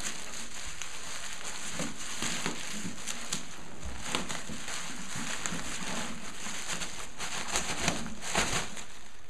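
Plastic bubble wrap crinkling and rustling as it is pulled and peeled off by hand, with a run of sharper, louder crackles near the end.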